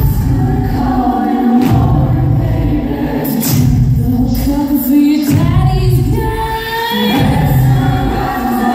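Vocal group singing in harmony, a cappella, with held chords over a low bass part.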